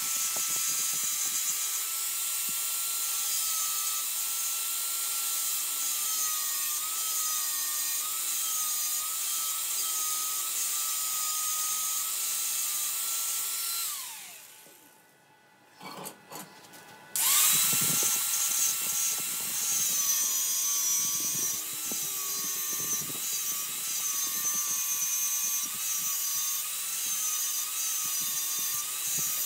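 Angle grinder with a thin abrasive disc grinding the end of a hardened steel fluted cutter, its motor whine dipping and wavering as it bears on the metal. About halfway it is switched off and winds down, then a few seconds later it starts again and keeps grinding.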